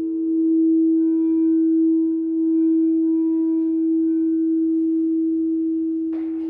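Singing bowl ringing with one sustained low tone and shimmering overtones that swell and waver without dying away. A short scratchy noise comes near the end.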